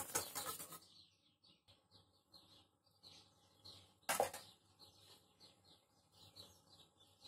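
A wire whisk stirring liquid in a stainless steel pot, stopping after about a second. Faint, quick bird chirping follows, with a single knock about four seconds in.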